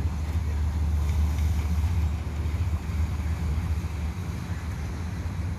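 Wind buffeting the phone's microphone, a rough low rumble that wavers throughout and eases a little in the second half.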